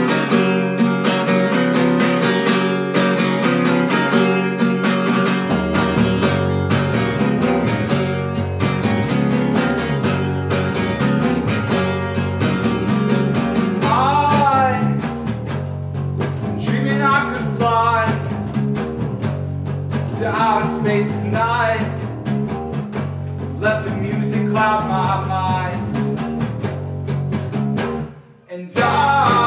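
Acoustic guitar strummed in a steady rhythm, with an electric bass guitar joining about five seconds in and a man singing from about halfway. The two instruments stop briefly near the end, then come back in.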